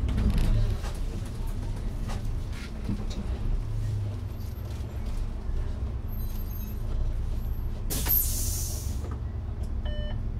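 Interior of an Iveco Urbanway 12 GNV natural-gas city bus: steady low engine and road rumble with light rattles and clicks. A short hiss comes about eight seconds in, and a brief beep sounds near the end.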